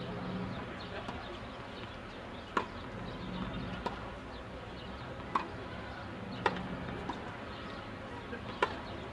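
Tennis rally: the ball is struck by rackets and bounces on the court, about five sharp pops spaced a second or two apart, some louder and some fainter.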